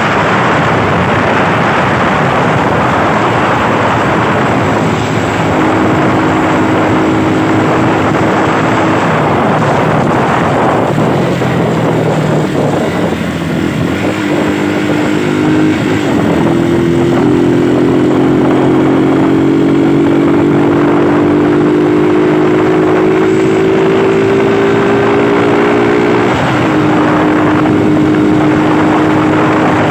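A Rusi motorcycle engine running under way, with heavy wind rush on the microphone. The engine note climbs slowly through the second half, then drops suddenly near the end.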